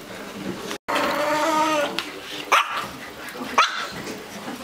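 Puppies whining, then two sharp yips about a second apart.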